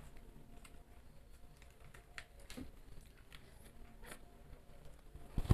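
Faint handling of small plastic cup jellies being opened and eaten: scattered light clicks and crinkles, with a sharper click near the end.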